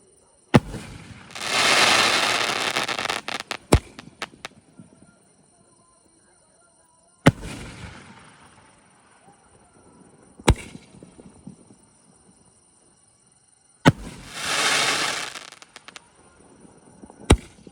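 Aerial shots from a multi-shot 3-inch fireworks cake, a sharp bang every few seconds. Twice a bang is followed by a loud rush of noise lasting a second or two, with a few quick pops after the first.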